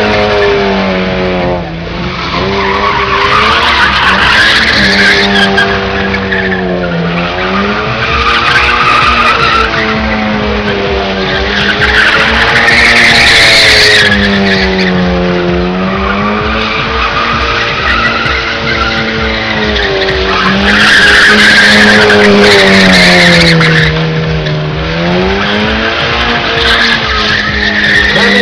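Lada saloon doing burnout donuts: its four-cylinder engine is held at high revs that sag and climb back every few seconds, while the rear tyres squeal and scrub on concrete throughout. The squeal is loudest in two stretches, around the middle and again about three-quarters of the way through.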